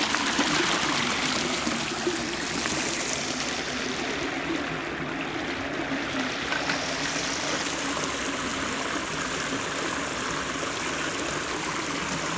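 Shallow stream water flowing and trickling over rocks, a steady rushing with no pauses.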